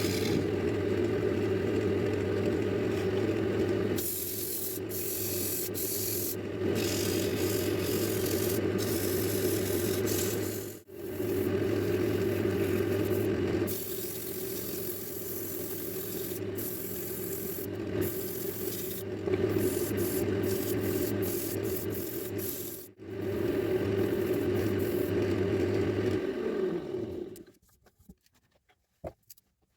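A wood lathe runs with a steady low hum while something rubs against a spinning walnut blank, as in sanding. There are two brief breaks partway through. Near the end the lathe winds down and stops.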